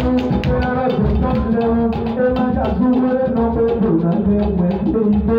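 Live music: a steady percussion beat under long held melodic notes that step up and down in pitch.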